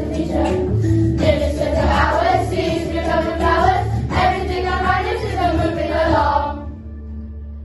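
A class of primary school children singing a song together as a choir. The singing stops about six and a half seconds in and the sound dies away.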